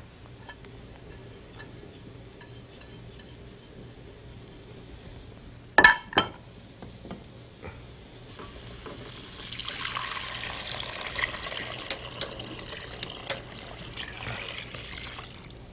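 Water poured from a bowl into a pot of vegetables, a steady splashing pour that starts about halfway through and runs on for several seconds. Before it, about six seconds in, two sharp clinks.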